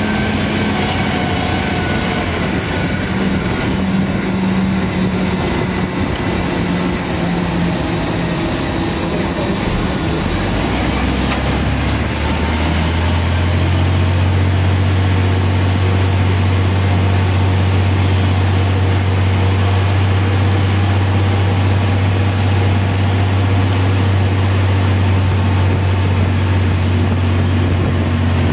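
Aircraft tow tractor's engine pulling a Boeing 777-300ER by its nose-gear towbar, running under load with rolling noise from the taxiway. About twelve seconds in, it settles into a louder, steady low drone.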